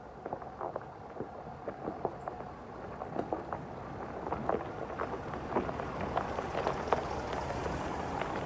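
Ford F-250 Tremor pickup driving up to and past the microphone on a rocky dirt trail, its engine growing louder as it nears, with many irregular crunches and pops from the tyres rolling over rocks and gravel.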